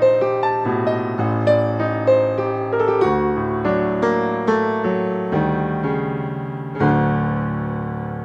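Slow solo piano music: single notes over held bass notes, then a louder chord near the end that rings out and fades.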